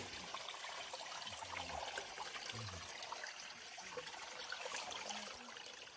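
Steady hiss of running water, with faint distant voices.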